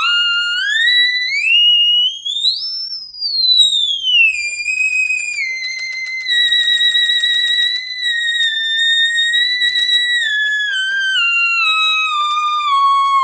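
Otamatone Deluxe played by sliding a finger along its stem: one continuous, very high-pitched electronic tone that climbs in steps and glides to a peak about three seconds in, falls back and holds, then steps back down near the end.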